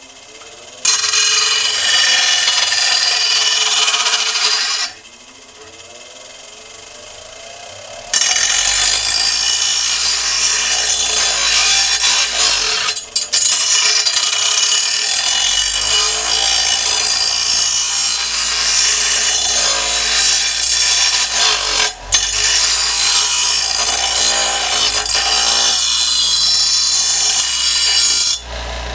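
Power grinder grinding the cutting edge of a steel lawn mower blade to sharpen it: a harsh, loud grinding noise in two bouts, a short one near the start and a long one after a pause of about three seconds, with brief let-ups along the way.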